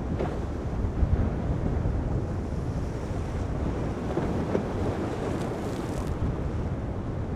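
Wind buffeting the microphone over the wash of rough, heavy seas breaking.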